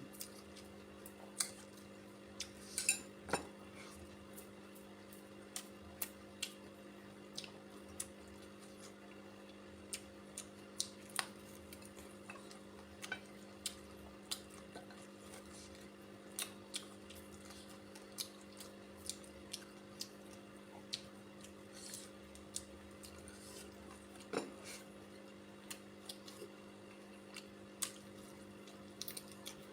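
Scattered light clinks and taps of cutlery against a plate during a meal, irregular and short, over a steady low hum.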